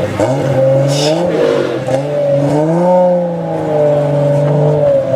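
Nissan Skyline R33's straight-six engine revved while the car stands, its pitch climbing to a peak about three seconds in, easing a little and then held steady at raised revs.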